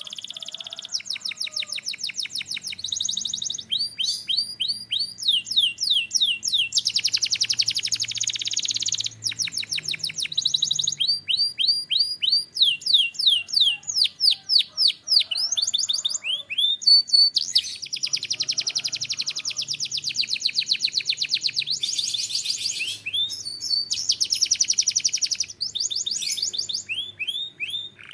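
A canary singing without pause: rapid trills and runs of repeated rising and falling whistled notes, changing phrase every second or two.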